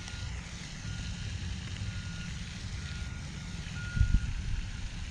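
A vehicle's reversing alarm beeping, a short single-pitch beep about once a second. Under it, wind rumbling on the microphone, with a thump about four seconds in.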